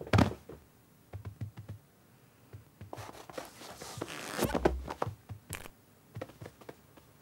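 Cartoon sound effects of cats moving about: light scratching and scrabbling ticks, then a longer stretch of rustling in the middle that ends in a soft thump, followed by a few more scratchy clicks.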